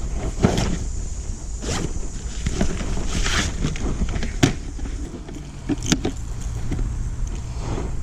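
Wind rumbling on the microphone, with scattered clicks and rustles, sharpest a little after 4 seconds and again at about 6 seconds.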